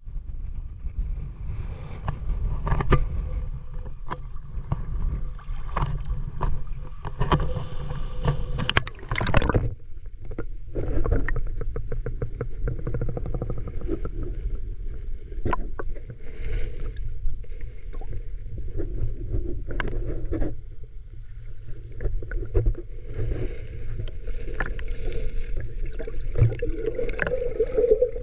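Muffled sound of shallow sea water moving around a submerged GoPro 10: a steady low rumble with many small clicks and crackles, and a dense run of clicks about nine seconds in.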